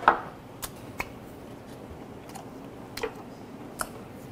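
A small glass set down on a wooden table with one sharp knock just after the start, followed by a few faint clicks and crunches of chewing as a seaweed-wrapped hand roll is eaten.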